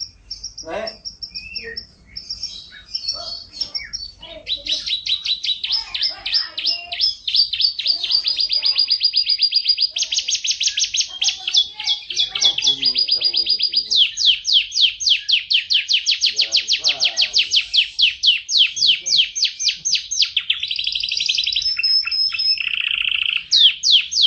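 F1 canary singing a long, continuous song of rapid trills: fast runs of repeated notes, some held whistled notes, and a lower buzzy roll near the end.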